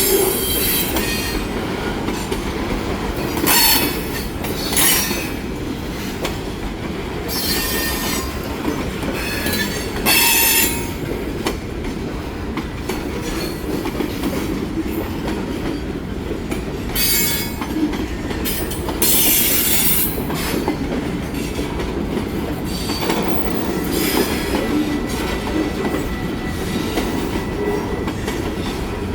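Freight train cars rolling past close by: a steady rumble of steel wheels on rail, with short bursts of wheel squeal and clatter every few seconds.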